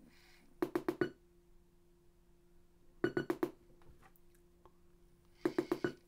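Bleeps from a faulty Panasonic SJ-MJ78 MiniDisc portable player that won't play properly, heard through an external speaker. The bleeps come in three bursts of about four quick bleeps, roughly two and a half seconds apart, over a steady hum from the speaker while it is plugged in to charge.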